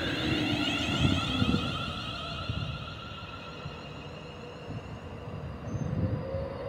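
Electric trains running through the station: a London Northwestern Railway Class 350 Desiro unit beside the platform and an Avanti West Coast Class 390 Pendolino passing on a far line. A steady electric whine sits over the rumble of wheels on rail, and the rumble swells about a second in and again near the end.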